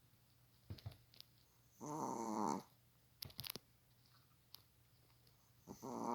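Pet dog snoring in its sleep: two pitched snores under a second long each, about four seconds apart, the second near the end, with a few short clicks between them.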